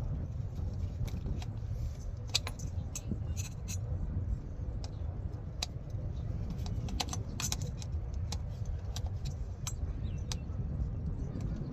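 Irregular sharp metallic clicks and clinks of hand tools and a hose clamp being worked on a fuel line, over a steady low rumble.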